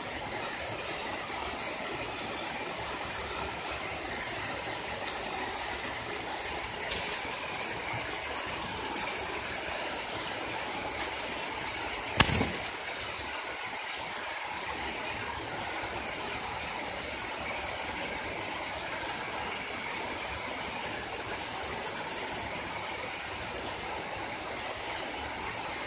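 Heavy rain pouring steadily onto a paved courtyard and splashing on the wet ground. About halfway through there is a single sharp knock, the loudest sound.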